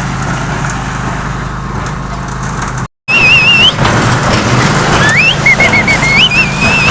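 Concrete mixer and conveyor belt running with a steady low hum. After a sudden cut about three seconds in, a high warbling tone sweeps up and wavers over continuing machine noise.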